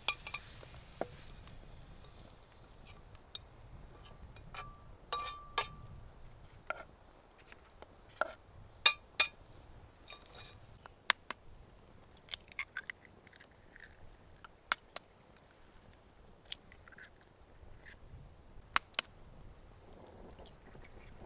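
Someone eating: soft chewing with scattered light clicks and clinks of a utensil against dishes, one clink ringing briefly about five seconds in.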